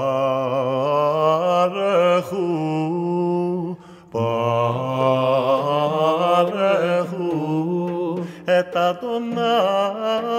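Background music: a solo voice chanting in long, ornamented phrases, with a short break about four seconds in.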